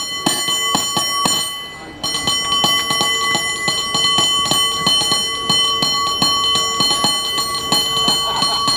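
Cable car bell rung in a fast rhythmic pattern, several strikes a second over its sustained ring. There is a brief let-up about two seconds in, then the ringing picks up again.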